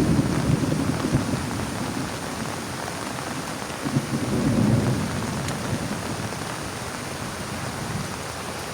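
Heavy rain drumming steadily on a plastic tarp, with low thunder rumbles swelling near the start and again about four seconds in.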